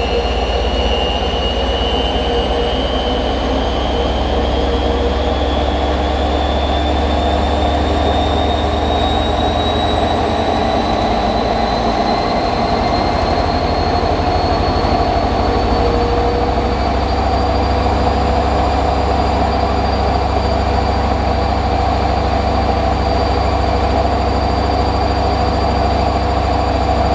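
Hoover Nextra HNL662 washing machine spinning up: a motor whine rises steadily in pitch over a constant low drum rumble as the spin speed builds.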